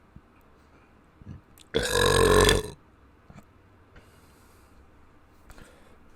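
A person belching once: a single loud burp with a clear pitch, about a second long, near the middle.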